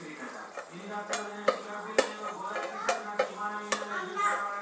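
Wooden rolling pin rolling puri dough on a steel plate, making a string of irregular clacks as it knocks against the metal.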